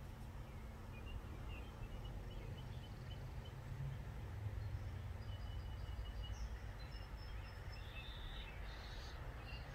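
Faint outdoor ambience: a steady low rumble with scattered faint bird chirps.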